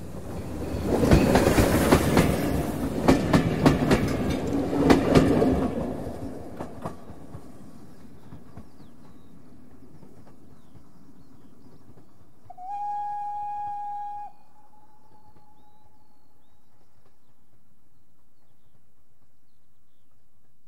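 Steam train coasting past at medium speed: wheels clicking over rail joints, loudest between about one and six seconds in, then fading away. About twelve seconds in, the steam whistle sounds one steady blast of about two seconds, followed by a faint tail.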